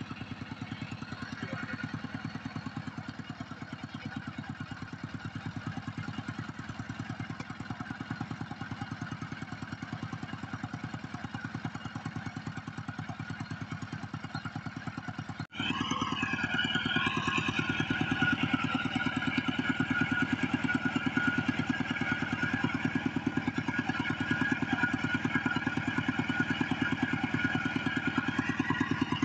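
Kubota two-wheel walking tractor's single-cylinder diesel engine running steadily with a rapid, even chug. About halfway through it cuts to closer and louder, with a steady higher whine over the chug.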